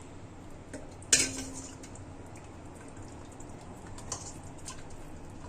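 A utensil clinks once against a dish about a second in, ringing briefly, followed by a few faint light taps.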